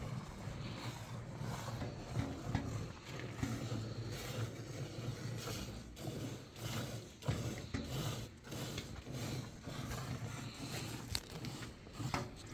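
Cow being hand-milked by two people, streams of milk squirting into an enamel bucket that already holds foamy milk, in a quick irregular rhythm of several squirts a second over a steady low hum.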